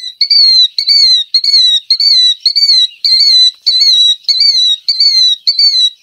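Recorded killdeer calling, played back from the Merlin bird app: a shrill, high note repeated over and over, about two a second, each note sliding down in pitch.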